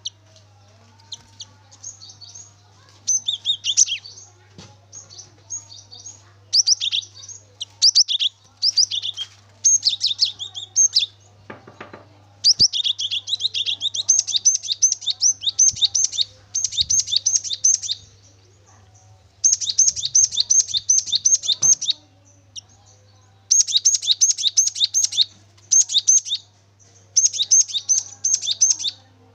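Cinereous tit (gelatik batu) singing loudly, with rapid runs of repeated high, sharp notes delivered in phrases of a second or two, broken by short pauses. A faint steady low hum lies underneath.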